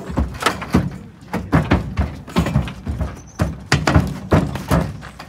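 A horse's hooves knocking and clattering on the floor and rear ramp of a horse trailer as it backs out: a quick, irregular run of heavy thuds.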